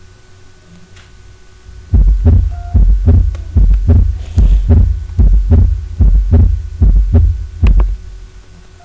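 Normal human heart sounds heard through a stethoscope at the mitral area (cardiac apex): a steady lub-dub rhythm, each low, dull first heart sound (closure of the mitral and tricuspid valves) followed by the shorter second sound. The beats start about two seconds in and run for about six seconds.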